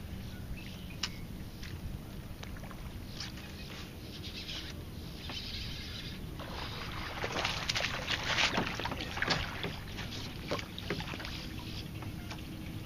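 Water splashing as a hooked bass thrashes at the surface beside a small fishing boat, loudest for a few seconds in the middle, over scattered small clicks and a low steady hum.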